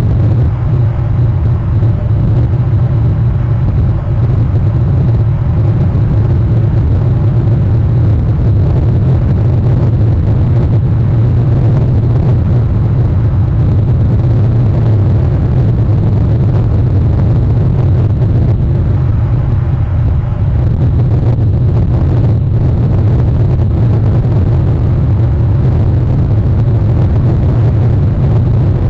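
Steady, loud low rumble without pauses or distinct events.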